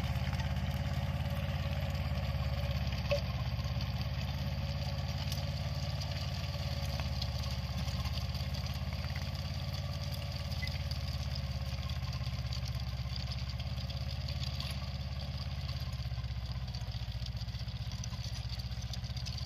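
Diesel engine of a Mahindra Jivo 305 DI 4WD mini tractor running steadily under load while it drives a Shaktiman rotavator tilling soil.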